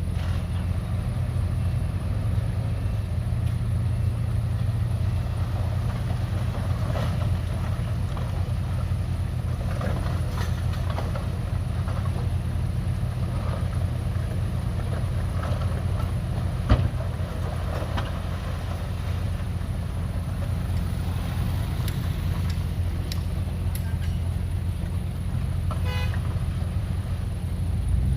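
Heavy earthmoving machinery's diesel engine running steadily, with scattered clanks and one sharp knock partway through.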